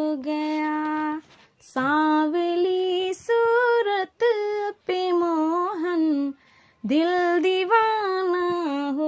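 A woman singing a Hindi devotional bhajan solo, with no instruments heard, in long held notes with sliding ornaments and two short breath pauses.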